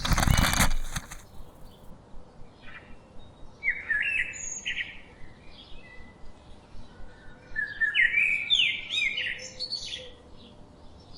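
Small birds chirping and singing in short, quick phrases, busiest in two stretches a few seconds apart. A loud rushing noise cuts off about a second in.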